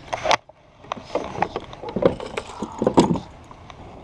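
Irregular knocks and scuffs of handling in a fishing kayak as a small largemouth bass is let go, the loudest knock just before the end.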